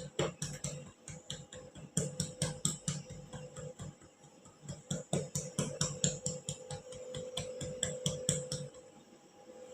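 Bursts of rapid light clicking, several clicks a second, in three runs, over a faint steady hum.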